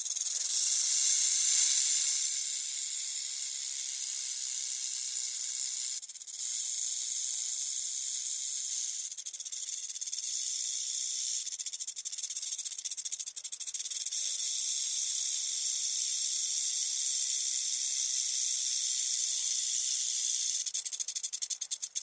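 Snake hissing: a long, high, airy hiss with brief breaks about six and nine seconds in. It turns fluttery for a while in the middle and breaks up into flutters at the end.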